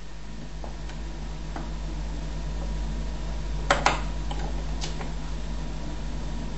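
Sansui FR-D35 turntable with its tonearm swinging back to the rest: a steady low hum with a few faint ticks, then two sharp mechanical clicks close together about four seconds in and a lighter click a second later.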